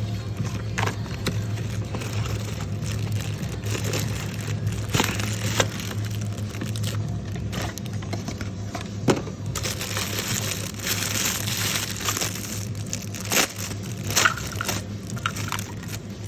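Crinkling and clicking of objects being handled, with scattered sharp clicks, over a steady low hum.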